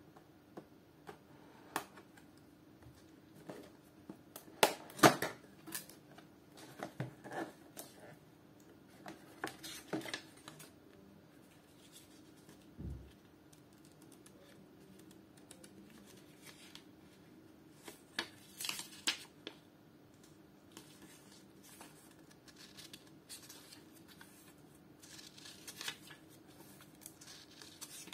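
Folding knife slitting the seal on a small cardboard product box: sharp scraping cuts and clicks, loudest about five seconds in. Then the box is handled, with a dull thump midway, and a thin paper instruction booklet rustles as it is opened and its pages are turned.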